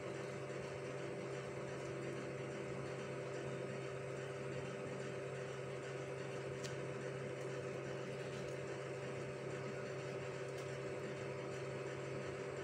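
Steady machine-like hum made of several even tones, unchanging throughout, with two faint ticks in the middle and later on.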